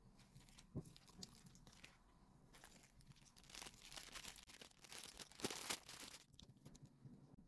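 Thin plastic packaging crinkling and tearing as it is handled and opened, in several bursts of rustling from about two and a half seconds in until shortly before the end, after a single sharp tap near the start.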